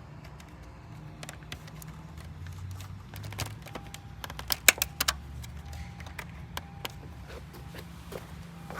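Clicks and knocks from hands working inside a car cabin, with a sharp cluster of them about halfway, over a steady low hum. A faint high tone comes and goes from about halfway.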